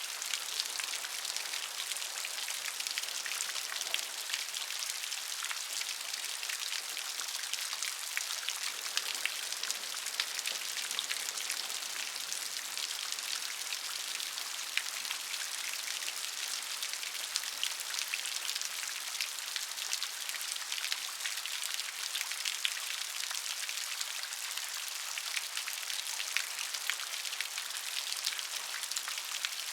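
Steady rain falling, many close raindrops pattering on a surface in a dense, even hiss of small ticks.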